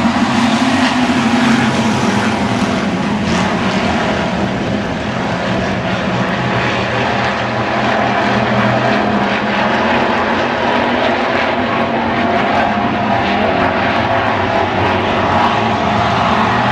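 Hobby stock race car engine running at racing speed on the oval. The sound is loud and steady throughout, dipping slightly about five seconds in.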